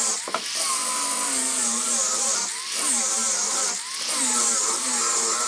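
Handheld power tool working wood in repeated passes, its motor whine dipping in pitch each time it bites and recovering between, with a hiss of cutting or sanding that comes and goes every second or two.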